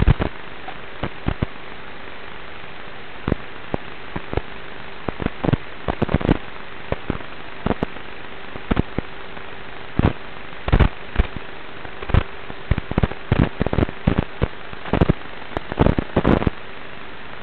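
On-board audio from a Traxxas Slash 1/10-scale RC truck running over a gravel road: a steady hiss and faint hum broken by many sharp, irregular crackles and knocks, thickest in the second half, as the truck jolts over the rough surface.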